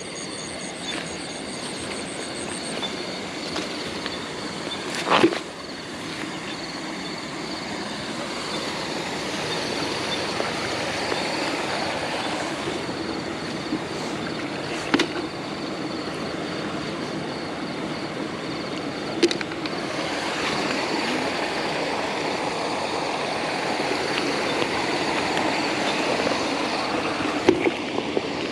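A steady rushing noise runs underneath a handful of sharp knocks, about four in all and spread apart, that fit snails being dropped into a plastic bucket.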